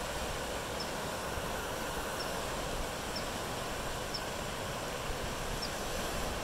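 Creek in flood after heavy rain, its swollen, muddy water rushing with a steady, even noise.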